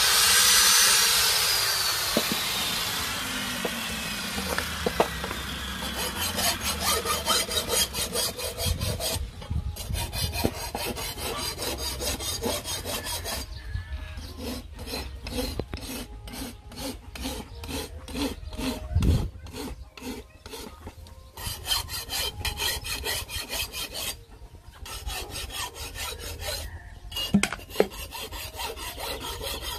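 An angle grinder winding down with a falling whine over the first few seconds, then a steel knife blade being filed by hand: a long run of regular rasping file strokes, with short pauses between runs.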